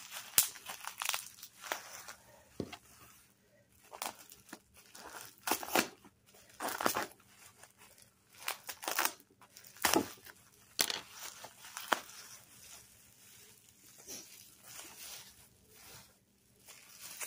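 Plastic bubble wrap rustling and crinkling as it is handled and pulled open by hand, in irregular bursts with short sharp crackles, the loudest about ten seconds in.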